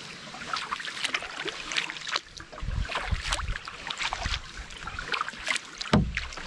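Paddling a pack canoe through calm shallow water: small splashes and drips from a double-bladed paddle, with one louder dull knock near the end.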